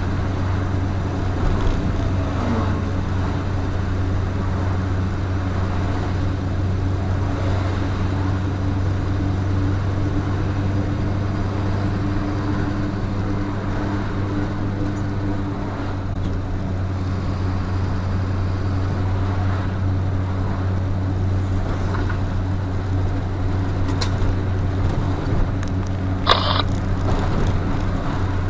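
A truck's engine and tyre noise heard from inside the cab while cruising: a steady low drone. A short, sharp noise sounds near the end.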